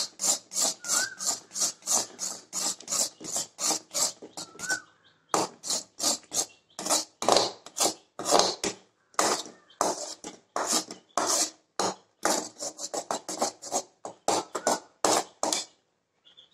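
Slotted steel spatula scraping the bottom of a metal kadai in quick, rhythmic strokes, about two to three a second, as thick almond burfi paste is stirred without pause while it cooks down.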